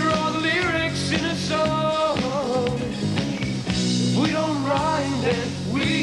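Band rock music: a melodic lead line that bends in pitch over held low bass notes and chords.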